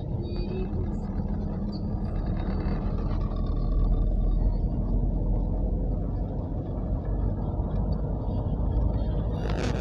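Steady road and engine noise heard from inside a moving car's cabin: a low, even rumble. A brief hiss flares up near the end.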